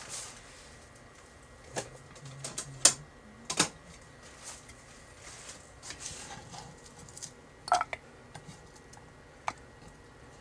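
Irregular taps and knocks as sliced green bell pepper pieces are pushed and picked up by hand on a wooden cutting board.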